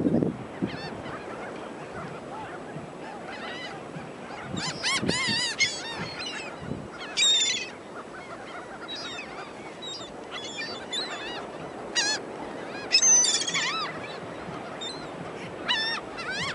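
A flock of gulls calling over one another, short squawking cries in clusters, loudest about five, seven and thirteen seconds in, over a steady background rush.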